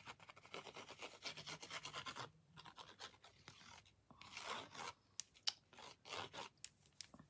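Faint scratching of a liquid glue bottle's tip drawn in zigzags across embossed cardstock, in a run of quick strokes. A few sharp clicks come in the second half.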